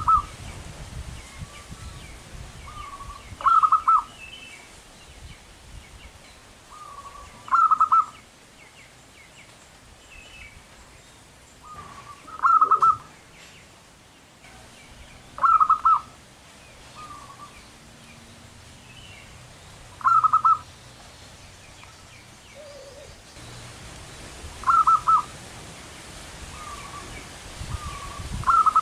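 Zebra dove (perkutut) singing its cooing song: a soft lead note followed by a loud, quick burst of rolling coos, repeated about every four seconds, eight times. Faint chirps of other small birds sound behind it.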